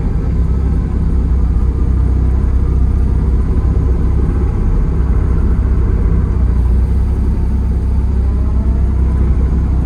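Kubota KX040 mini excavator's diesel engine running steadily as a low, even drone.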